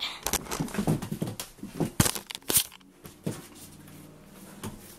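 Handling noise as a camera is moved and set in place: the microphone rubs and rustles against clothing, with sharp knocks about two seconds in. After about three seconds it settles to quiet room tone with a faint low hum.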